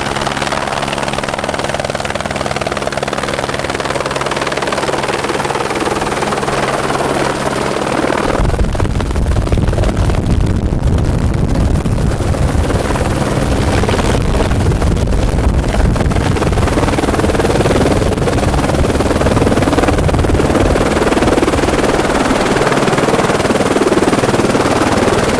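A vehicle engine running steadily with a low hum. About eight seconds in, a louder, rougher noise joins and continues.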